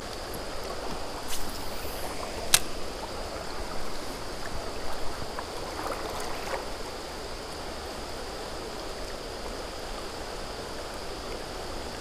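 Creek water running steadily over rocks, with a steady high insect chirr underneath and a sharp click about two and a half seconds in.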